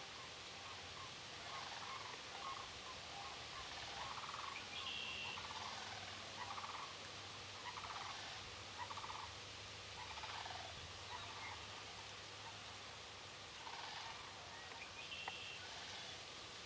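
Faint turkey yelps, a slow series of about ten short raspy notes spread over roughly twelve seconds, with two short high notes from another bird.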